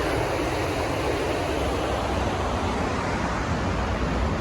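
Steady rush of the Ocoee River's whitewater running high during a dam release, with wind rumbling on the microphone.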